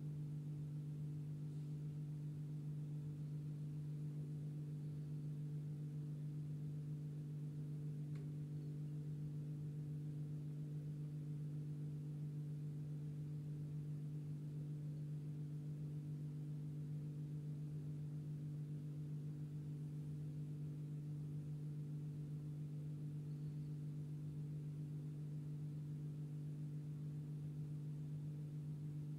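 A steady low hum made of a few held tones, the lowest one the strongest.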